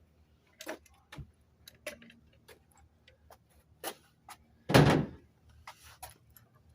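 Scattered light clicks and knocks of tools being handled at wall framing, with one loud thump about five seconds in.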